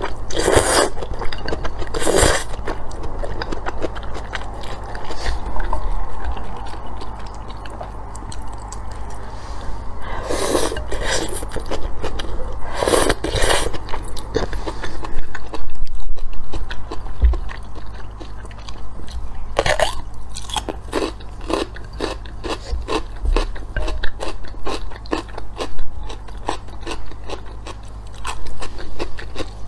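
Close-up mukbang eating sounds: noodles slurped in several loud sucks, with crisp biting and crunchy chewing of a pickled cucumber between them.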